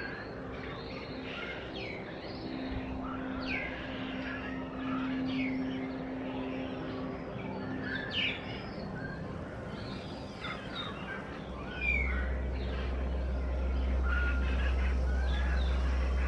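A flock of starlings chattering, with a busy mix of short whistles, chirps and clicks. A low steady rumble joins in the last few seconds.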